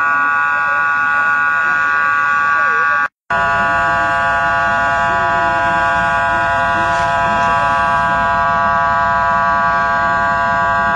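A loud, steady whine at one unchanging pitch, with several overtones, with wavering voices beneath it. It cuts out completely for a moment about three seconds in and returns unchanged.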